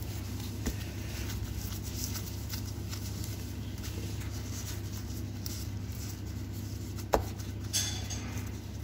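Kitchen background: a steady low hum from running equipment, with faint clatter of work, a sharp knock about seven seconds in, and a second clatter just after it.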